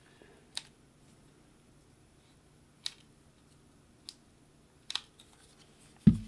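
Small crafting sounds while working with a hot glue gun: a few light, scattered clicks and ticks, then a sharp knock near the end.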